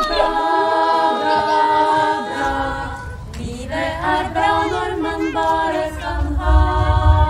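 A cappella choir singing, several voices holding long notes together. A low rumble comes in near the end.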